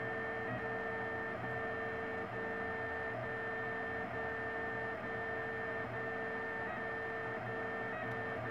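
Printrbot LC 3D printer running a print: its stepper motors give a steady two-pitch whine, broken by short breaks every half second to a second as the moves change.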